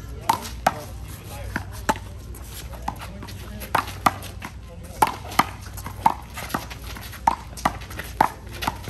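Rubber handball being hit by players' hands and smacking off the wall and court in a rally: an irregular run of sharp smacks, sometimes two or three within a second.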